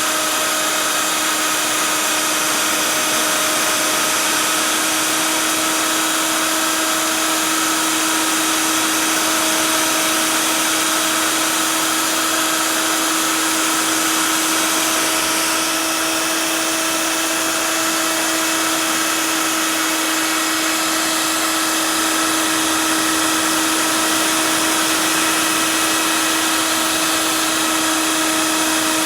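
CNC router spindle running steadily while cutting expanded PVC: a constant whine over a loud, even hiss.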